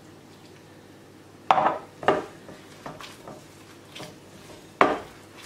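Glass mixing bowl knocking and clinking as gloved hands knead a stiff bulgur and semolina dough in it: a few sharp knocks, the loudest about one and a half seconds in and again near the end, with lighter taps between.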